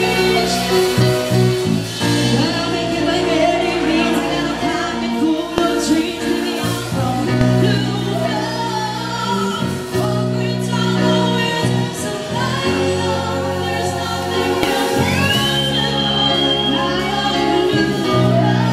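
A live band playing a song with a woman singing lead into a microphone. About three-quarters of the way through, a high note slides up and is held.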